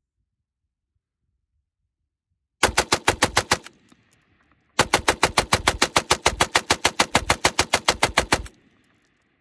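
1928 Colt Commercial Browning machine gun firing full-auto with its .308 bolt under test: a short burst of about a second, then after a brief pause a longer burst of nearly four seconds, at a steady rate of around eight to nine shots a second.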